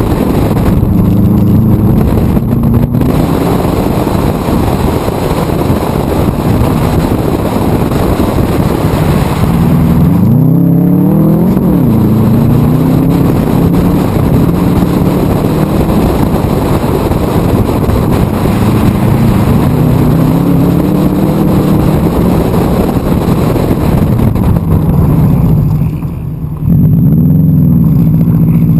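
A Subaru WRX's turbocharged flat-four engine driven hard on a dirt rallycross course, heard from a camera mounted outside the driver's door. The revs climb and fall repeatedly through gear changes and corners, with a brief lift off the throttle near the end before it pulls again.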